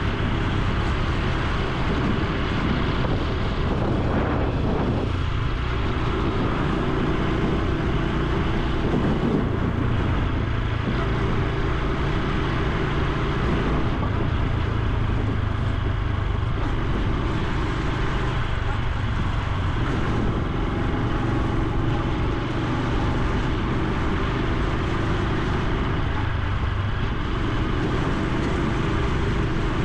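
Honda Super Cub C125's air-cooled single-cylinder 125 cc engine and exhaust running steadily on the move, its note shifting a few times with the throttle.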